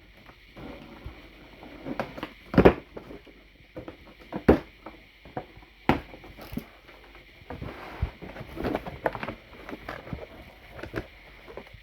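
Irregular knocks, clicks and clatter of hard plastic vacuum-cleaner parts being handled, with one sharp knock about two and a half seconds in and a faint steady hiss underneath.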